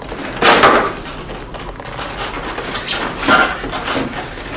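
Cardboard box flaps pulled open and handled, with a loud scraping rustle about half a second in and a shorter one around three seconds in.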